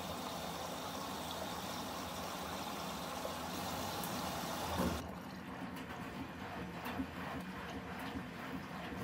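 Water rushing into a Nortec Primus P6 washing machine as it fills, swelling briefly and then cutting off suddenly about five seconds in as the inlet shuts. A lower machine hum with faint clicks follows.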